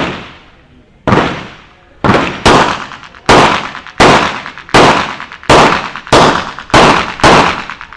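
A string of about ten gunshots fired in quick succession, roughly one every half second to second, each with a short echoing tail.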